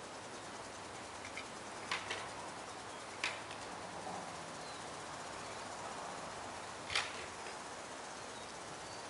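Outdoor background hiss, steady throughout, broken by a few sharp clicks: two close together about two seconds in, one a second later, and a louder one about seven seconds in. A couple of faint short chirps sound around the middle.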